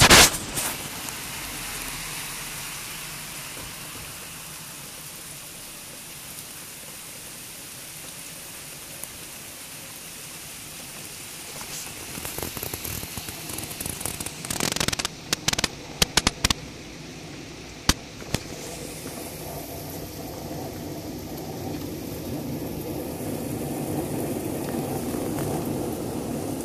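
Steady hiss of rain falling on wet paving and gardens, thickening toward the end. A sharp click at the start and a run of sharp clicks and crackles between about twelve and eighteen seconds in.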